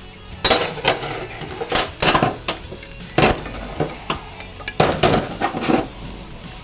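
Steel clutch plates and friction discs from a transmission's second gear clutch pack clinking and clanking against each other and the bench as they are handled and set down: about eight sharp metallic clanks at uneven intervals.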